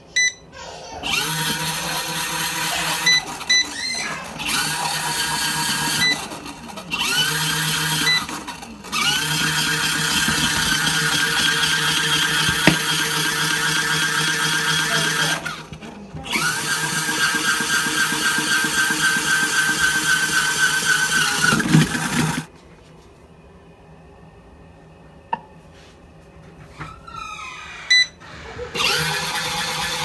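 Mini portable folding washing machine's small motor running its wash cycle in long runs, breaking off briefly and starting again several times, then stopping about 22 seconds in and starting again near the end. A few short beeps from its control buttons.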